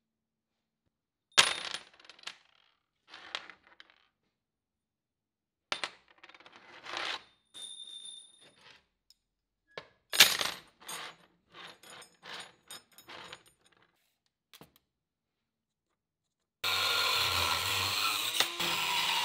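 A string of separate clanks and clinks as metal pieces are set down on a steel workbench, one ringing briefly. About three seconds before the end an angle grinder starts cutting steel and runs steadily.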